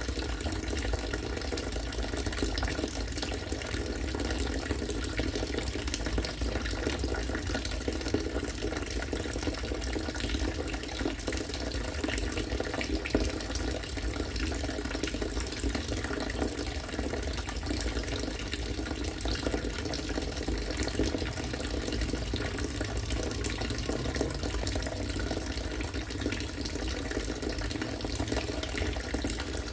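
Harvested rainwater pouring and splashing steadily into collected water, a continuous rush with small bubbling splashes.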